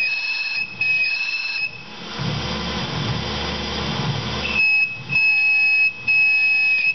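Steel boring bar with an insert chattering as it roughs a counterbore in 303 stainless steel turning in a Tormach PCNC 1100 mill spindle: a high-pitched squeal in short bursts with brief pauses between them. In the middle it drops out for about three seconds, leaving only the machine's lower running hum.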